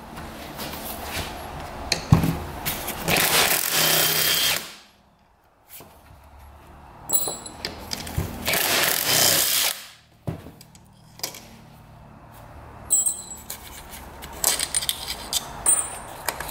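Power impact driver run in two bursts of about two seconds each, around three and eight seconds in, backing out the crankcase bolts of a Honda CR125 two-stroke engine. A sharp knock sounds just before the first burst.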